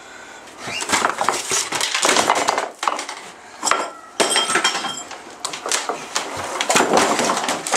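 Dishes, pots, pans and cutlery clattering and crashing as a kitchen is smashed up, a long run of impacts with a metallic ringing clink about halfway through.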